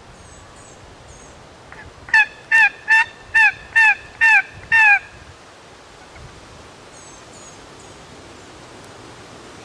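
Turkey yelping: a run of seven loud, evenly spaced yelps about half a second apart, starting about two seconds in. Faint high bird chirps come before and after them.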